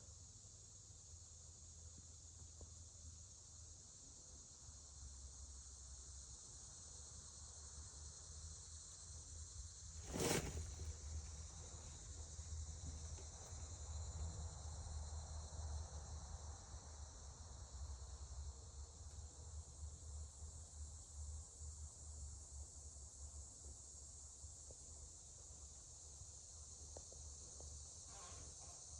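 Faint, steady high-pitched drone of insects such as crickets, over a low rumble of wind or handling noise, with one sharp click about ten seconds in.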